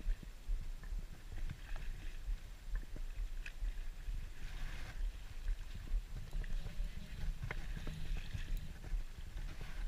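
Hooked steelhead splashing and thrashing at the creek's surface, with two short bursts of splashing about halfway through and near the end, over a constant low rumble.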